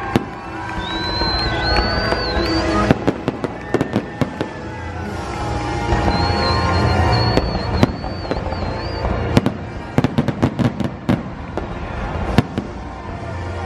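Fireworks display: many sharp bangs and crackles, thickest in the last few seconds, with music playing alongside.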